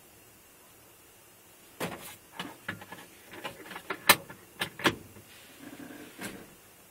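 Low steady hiss, then from about two seconds in a run of irregular sharp clicks and knocks, the loudest a little past the middle.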